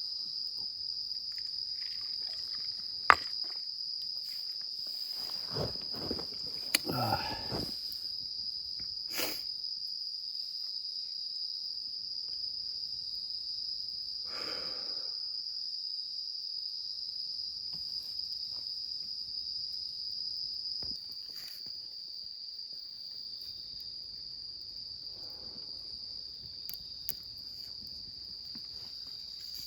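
Autumn insects chirring in a steady, high-pitched chorus throughout, a little quieter after about twenty seconds. A sharp click comes about three seconds in, with rustling and knocking around six to eight seconds and again briefly near fifteen seconds.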